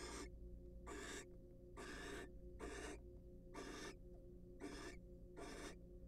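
Barn owl giving a steady series of short hissing, snore-like calls, about one a second, seven in all.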